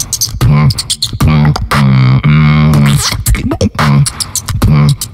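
Live solo beatboxing into a handheld microphone: sharp kick and snare clicks over a deep hummed bass line, with one bass note held for about a second near the middle.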